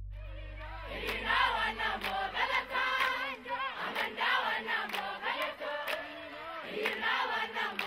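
A large group of schoolchildren singing together in chorus and clapping their hands.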